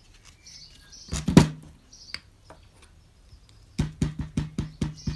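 A clear stamp on an acrylic block knocks twice on the desk about a second in, then taps rapidly on an ink pad, about eight taps at roughly five a second, inking the stamp. Birds chirp faintly in the background.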